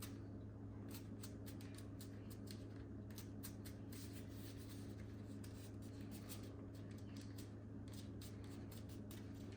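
Faint scratchy ticks and rubbing of fingers handling and pressing on a headphone earcup's screen mat and plastic shell, over a steady low hum.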